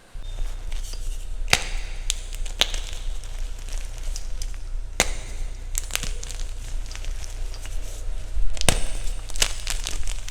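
Irregular crisp crunches and snaps, typical of chalk being crunched for ASMR, over a steady low hum that starts abruptly at the beginning.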